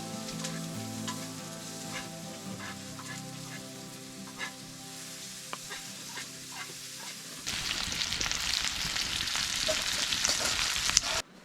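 Food sizzling and crackling in a hot frying pan, growing louder about two-thirds of the way through and then cutting off.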